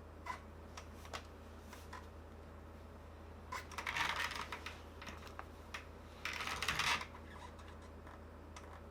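Scattered small clicks and taps with two brief scratchy rustles near the middle, from small tools and wires being handled while battery wires are soldered onto a game controller's board.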